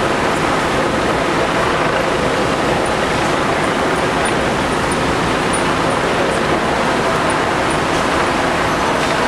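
Fire truck diesel engines and pumps running steadily, making a loud, even noise with no breaks.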